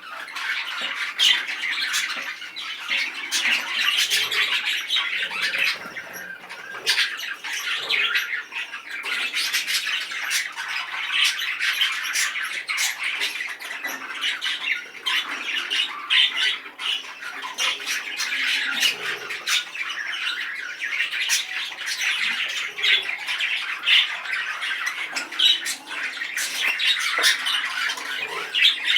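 Male budgerigar chattering and squawking without a break, a busy run of rapid warbles, sharp clicks and squawks, the display of a very excited male.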